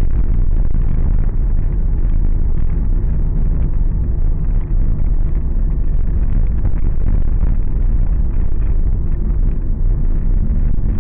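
Steady low rumble of a car driving, heard from inside the cabin: engine and tyre noise on the road, with a few faint ticks and rattles.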